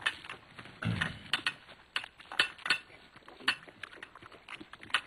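Breakfast being eaten: irregular light clinks and clicks of dishes and utensils, with a dull thump about a second in.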